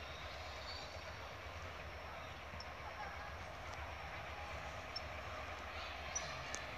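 Freight train with G22UB diesel locomotives approaching from a distance: a steady low rumble.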